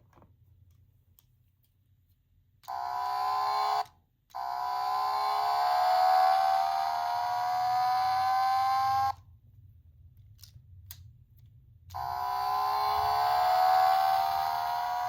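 Small electronic sound toy playing a car sound effect through its tiny speaker. The sound is a steady pitched tone that starts about three seconds in, breaks off briefly, then runs on for about five seconds with its pitch creeping slowly upward. After a pause with a couple of faint clicks it plays again the same way.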